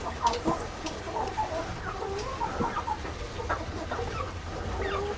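Hens clucking, a continuous scatter of short clucks and calls, with a few light clicks.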